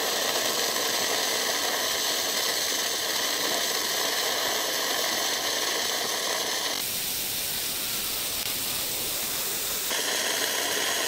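Arc of a Seibi EG-M100 100 V inverter flux-cored (non-gas) semi-automatic welder, steadily sizzling and hissing as it runs a bead on 1 mm thin steel plate. The hiss changes texture about seven seconds in and returns to its first sound near the end.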